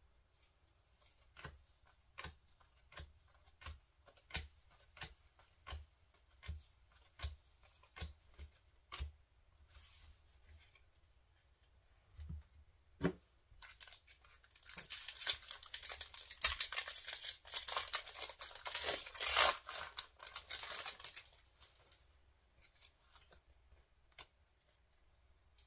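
Trading cards handled one at a time, a light tap about every three-quarters of a second, then a foil Pokémon TCG Paradox Rift booster pack wrapper being torn open, a dense crinkling rip lasting several seconds about halfway through.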